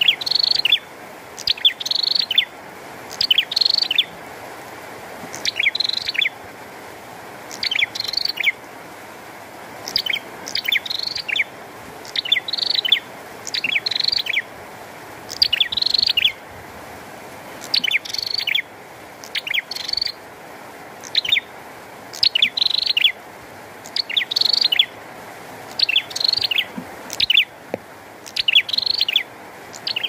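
Caged prenjak songbird singing loudly, repeating a short, sharp, high chirping phrase about every second and a half, over a steady hiss of rain.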